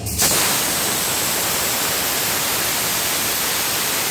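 A loud, steady hiss from a diesel locomotive pulling past close by. It starts and stops abruptly.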